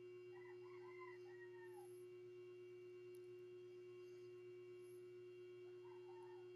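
Near silence: a faint steady hum, with faint distant bird calls near the start and again near the end.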